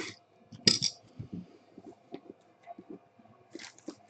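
Handling of the card box and its packaging: two short scraping swishes at the start and under a second in, then scattered small clicks and light knocks.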